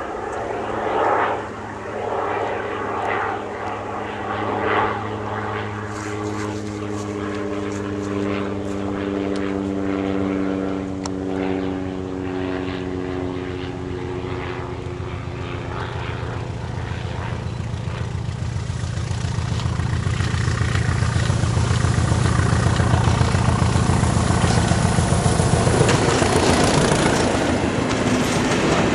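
Diesel locomotive hauling coaches approaching with its engine drone, growing steadily louder over about twenty seconds until it passes close by near the end.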